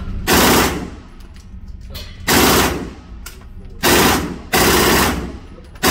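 Gun firing five loud blasts at uneven intervals. Each blast rings on briefly in the concrete lane of an indoor range.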